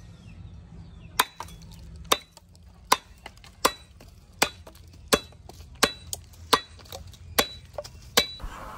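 Billhook blade chopping a yellow plastic pipe into short pieces against a wooden stump. About ten sharp chops come roughly one every three-quarters of a second, starting about a second in, with lighter taps between them. This is a cutting test of the new blade's edge.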